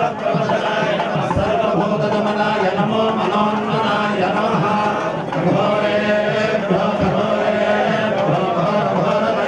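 Male voices chanting Sanskrit mantras without a break, over a steady low hum.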